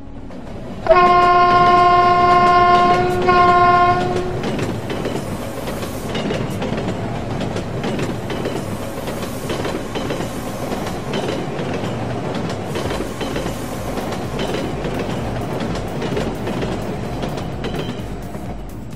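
Train horn sounding a long blast and then a short second one, followed by the steady rumble and clatter of a train passing through, fading near the end.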